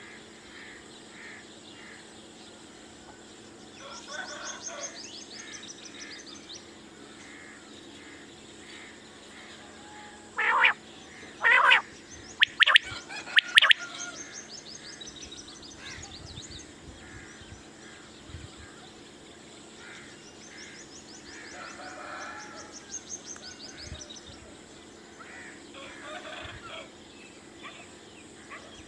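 Caged common quail calling: a short run of loud, sharp call notes in the middle, with faint chirping of other birds and a steady low hum behind.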